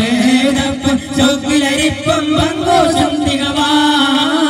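A male voice singing a devotional song, with hand-held frame drums struck in a steady rhythm.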